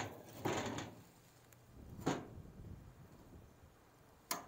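Hardware being handled while an aluminium diamond-plate toolbox is fitted to a trailer tongue: a short rattling scrape about half a second in, then sharp metallic clicks about two seconds in and near the end.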